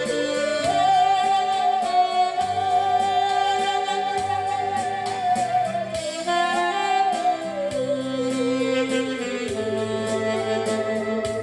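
Bowed musical saw singing a slow melody with wide vibrato, holding long notes and sliding down to a lower note about two-thirds of the way through, over a backing track with a steady beat.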